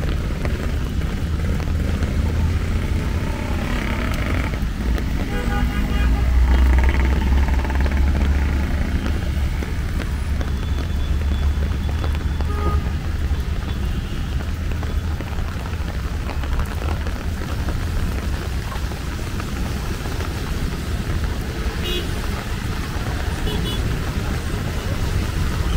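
City traffic passing on a wet street: a steady low engine rumble of cars and motorcycles that swells about six to nine seconds in, over a constant hiss.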